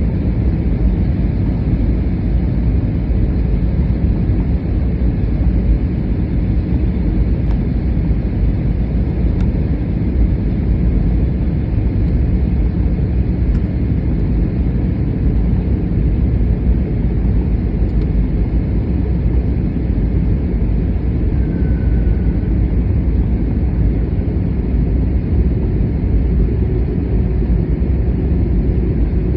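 Steady low rumble of an Airbus A321 landing in strong wind, with no rise or fall in level.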